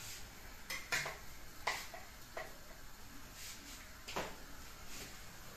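Kitchen cookware and utensils clinking and knocking: about five short, sharp clinks spaced irregularly, as pots, a spoon and a knife are handled.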